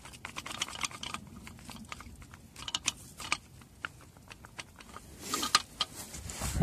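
Irregular light metallic clicks and rattles from a Chevrolet Cruze's worn front suspension strut parts being handled and worked, the play in them knocking, with a short scrape near the end.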